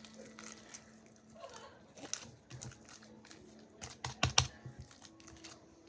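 Slime being pressed and pulled by hand, making scattered sticky clicks and small pops, with a quick run of louder clicks about four seconds in.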